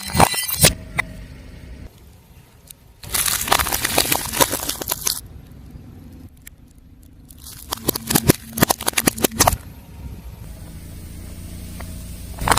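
A car tyre rolling over and crushing crunchy objects: dense crackling and crunching in a short burst at the start and two longer stretches of about two seconds each, with the car's low running sound in between.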